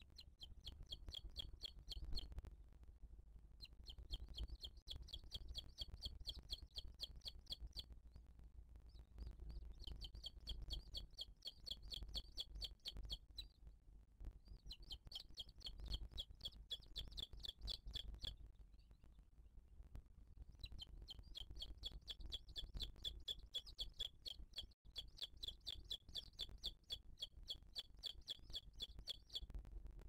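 Booted eagle chick begging while being fed: thin high chirps repeated several times a second in bouts of a few seconds, five bouts with short pauses between them, over a low background rumble.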